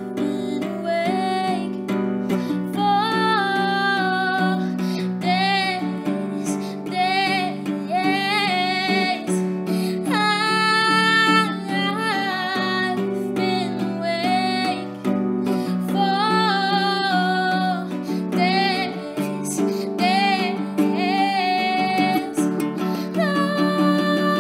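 A woman singing and accompanying herself on a strummed acoustic guitar; some of her held notes waver with vibrato.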